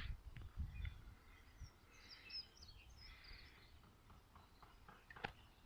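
Faint birdsong: short high chirps from small birds over a very quiet background, with a single click about five seconds in.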